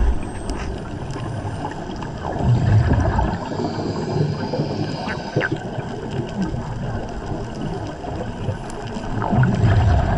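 Underwater gurgling of a diver's air bubbles, heard through the camera in the water, with two louder surges, one about two and a half seconds in and one near the end.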